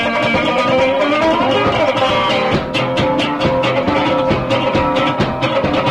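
Instrumental stretch of a raw, lo-fi rockabilly recording: electric guitar playing sustained and sliding notes over a steady, simple drum beat.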